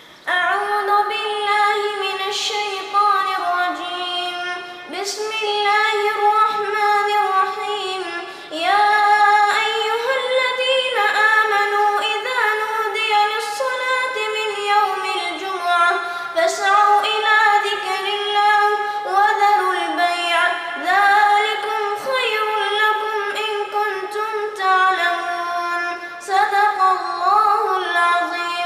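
A child's voice reciting the Quran in melodic tajweed style, unaccompanied: long held, ornamented notes in phrases separated by short pauses.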